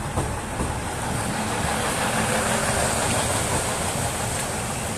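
KiHa 110 series diesel railcar rolling slowly past close by as it pulls into the platform, wheels running on the rails with the engine underneath, growing louder about two seconds in as the car goes by.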